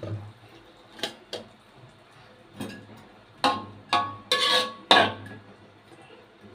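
Wooden spatula knocking and scraping against a wok as corn cob pieces are stirred in it: a few light knocks in the first second and a half, then a cluster of louder scrapes and clatters about halfway through, some with a brief metallic ring.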